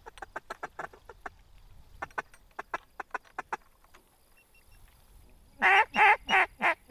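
Duck quacking: two runs of quick, short quacks in the first few seconds, then four loud, drawn-out quacks near the end.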